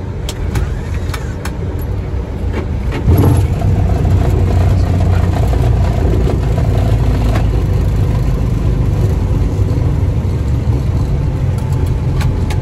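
Boeing 737-800 cockpit during the landing roll: a steady low rumble of runway and engine noise jumps sharply louder about three seconds in and then holds. The jump is typical of the CFM56-7B engines spooling up in reverse thrust.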